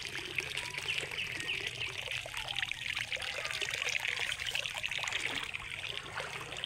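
Shallow creek water trickling and splashing as hands rummage through it for freshwater shellfish, with many small clicks running through it.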